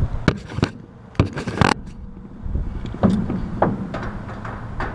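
Wind buffeting the microphone in a steady low rumble, with a string of sharp knocks and a scrape as a tool is worked at an air-conditioner condenser's electrical service panel.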